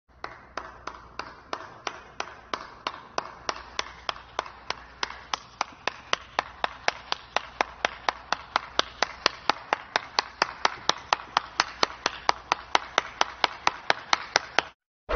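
One person clapping slowly on their own: single hand claps evenly spaced at about three a second, growing louder as they go, stopping shortly before the end.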